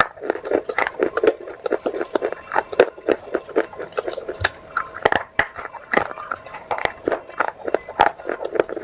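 Close-miked chewing of pieces of wet clay pot: a rapid, uneven run of small crunches, crackles and wet mouth clicks, with a few sharper bites.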